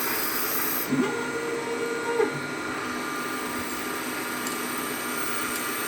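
CNC lathe running: steady machine noise, with a steady whine that starts about a second in and lasts about a second.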